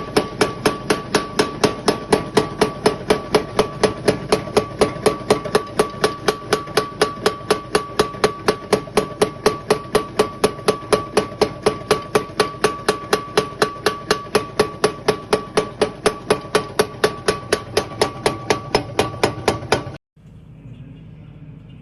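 Homemade mini power hammer running, its 4140 steel dies striking at an even rate of about three to four blows a second with a ringing metallic tone. It stops abruptly about twenty seconds in.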